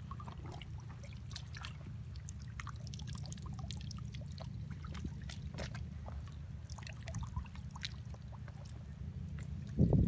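Shallow tide-pool seawater lightly trickling and splashing, with scattered small ticks, over a steady low rumble.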